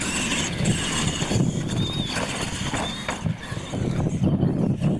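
Radio-controlled monster trucks racing on a dirt track, their small motors whining briefly over a steady low rumble.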